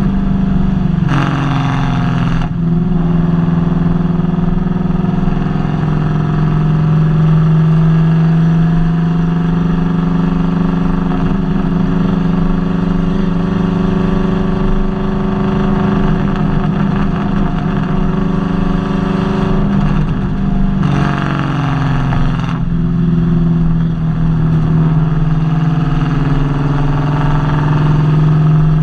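Nissan VH45DE 4.5-litre V8 running steadily with a misfire, the uploader's complaint. It surges briefly twice, about a second in and again about 21 seconds in.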